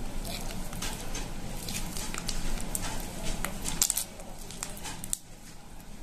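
Wet squelching and irregular sticky clicks of ripe palmyra palm fruit pulp being squeezed by hand through a net strainer into a glass bowl. The sound drops away about five seconds in.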